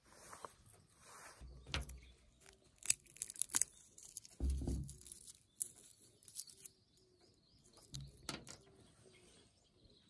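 Peanut shells being cracked open by hand, a series of sharp cracks and crackles in short clusters.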